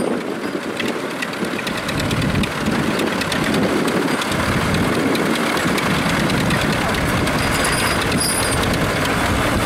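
Diesel farm tractor engine running steadily, getting louder about two seconds in.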